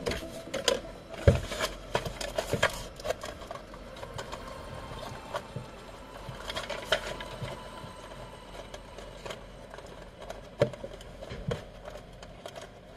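Cardboard packaging and a toy car being handled: rubbing, rustling and scattered taps and clicks as the car is worked out of its box insert. The handling is busiest in the first few seconds, with a sharp knock about a second in and two more near the end.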